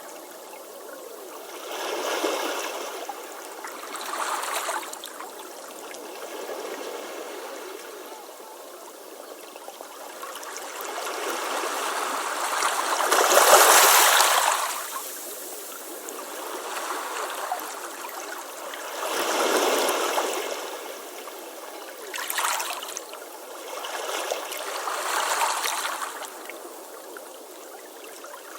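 Waves breaking and washing up a beach, the surf swelling and falling back every few seconds. The biggest wave builds for several seconds to a peak about 14 seconds in.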